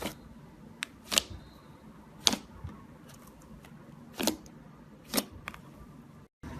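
A series of about seven sharp clicks and taps, irregularly spaced. The sound cuts out suddenly near the end.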